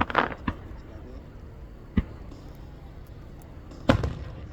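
Aerial firework shells bursting in sharp bangs. A quick cluster comes at the start, a single bang about two seconds in, and the loudest bang near the end, each with a short echoing tail.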